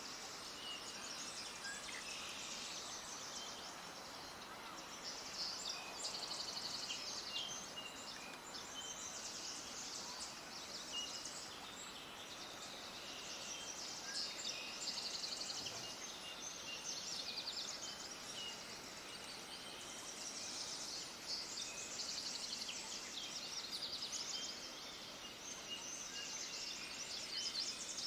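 A chorus of small birds chirping, with many rapid high-pitched chirps and trills overlapping continuously over a steady outdoor hiss.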